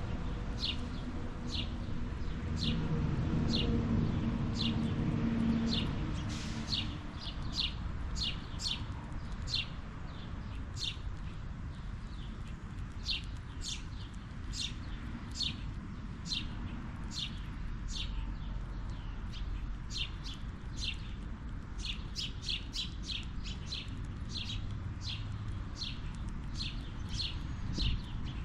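A bird chirping over and over: short, high, downward-sliding chirps, about one or two a second, over a faint outdoor background. A low rumble rises and fades in the first few seconds.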